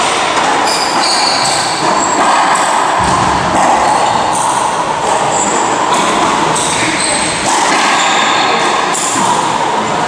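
Court shoes squeaking in short high chirps on a hardwood racquetball court floor, with a few thuds of the ball and footsteps, over a loud steady background noise.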